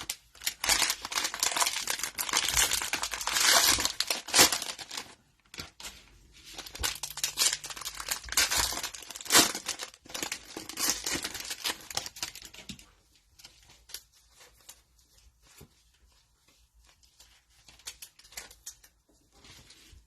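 Cellophane wrapper of a trading-card cello pack being torn open and crinkled, a dense crackling for about the first twelve seconds. After that come quieter, scattered ticks and rustles of the cards being handled.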